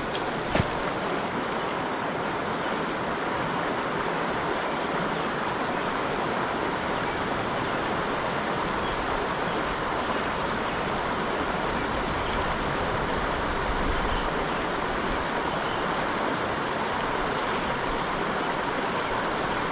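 Water of a small creek running, a steady, even rush that doesn't change, with one short click about half a second in.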